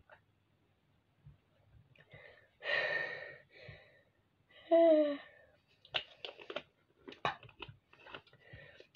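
Breathy exhale after a gulp of drink, then a short voiced 'ah' about five seconds in. A scatter of light plastic clicks follows as the drink bottle's cap is handled and screwed back on.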